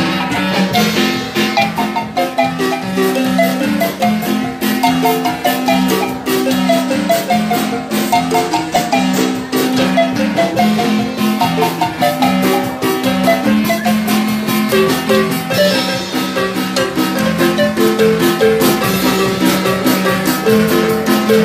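Marimba playing lively dance music, a quick run of struck mallet notes over a steady beat.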